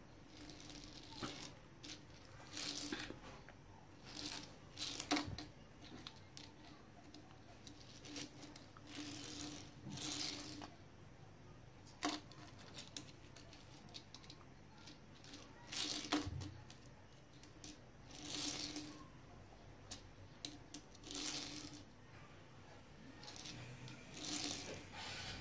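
Plastic toy vehicles being rolled and set down on a tiled floor: repeated short scraping rolls of small plastic wheels, with sharp clicks as the toys touch down or knock together.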